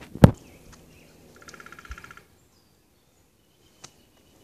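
A single sharp knock just after the start, then a small bird's rapid trill lasting under a second, with a faint high whistled bird note and a tiny click near the end.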